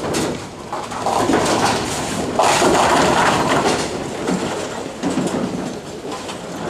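Bowling alley lane noise: bowling balls rolling along the lanes and pins crashing, with the loudest crash about two and a half seconds in.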